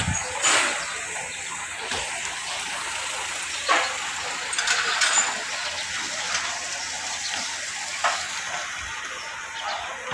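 Rice-seedling tray sowing machine running with a steady hiss, broken by a few sharp knocks several seconds apart.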